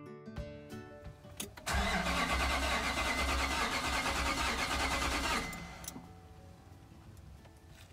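A car engine cranking on its starter for about four seconds, then stopping without catching: a no-start that the owner puts down to the fuel pump.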